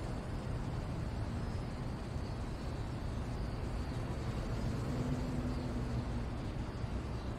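Steady low rumble and hiss of distant road traffic, an even ambient background without distinct events.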